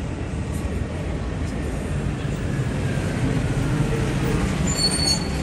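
Busy street traffic with a large vehicle passing close, its low rumble slowly growing louder, and a brief high tone near the end.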